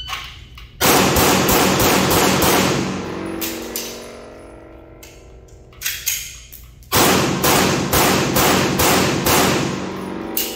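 Fast strings of 9mm pistol shots from a Sig Sauer P320 X5 Legion, each shot ringing on in the hall's echo: one rapid string about a second in, a couple of shots around the reload near the middle, then another rapid string about seven seconds in.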